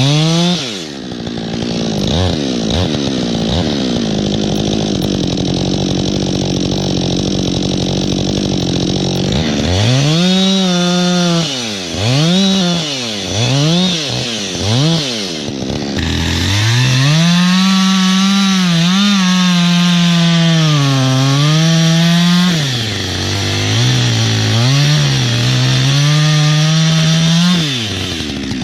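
Chainsaw engine running. It drops in speed at the start and runs steadily for several seconds, then is blipped up and down four times in quick succession. It is then held at high speed for about six seconds with its pitch sagging and recovering as it cuts wood, before running lower and unevenly and dropping off near the end.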